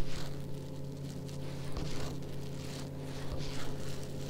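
A small motor running with a steady low hum, with wind gusting on the microphone and a few soft clicks.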